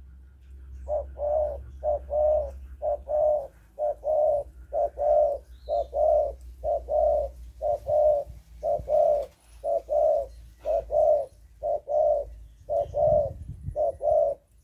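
Young spotted dove cooing: short, even-pitched coos, mostly in pairs, about two notes a second, starting about a second in.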